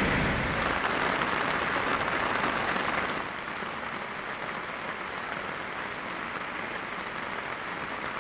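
A swollen waterfall rushing for about the first three seconds, then a cut to steady rain falling.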